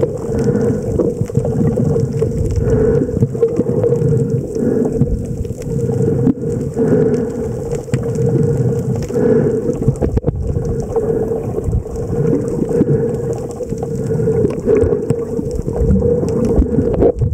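Underwater sound picked up by a snorkeler's camera: a steady low hum over a muffled rumble of moving water and a constant hiss, swelling and easing every second or so.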